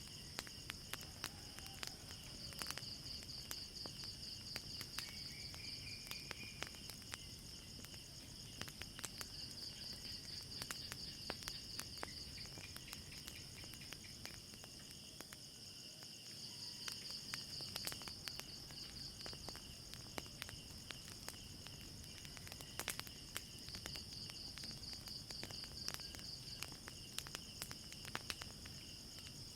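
Crickets chirring steadily in a high, pulsing drone, with irregular sharp pops and crackles from a burning wood fire.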